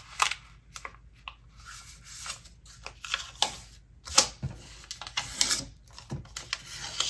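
A sheet of paper being folded and creased by hand: short, irregular rustles and scrapes as fingers press the fold flat and slide along the crease.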